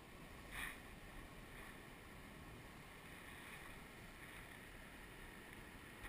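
Faint, steady rush of water from a small river cascade, with one short splash about half a second in from the hooked chub at the surface.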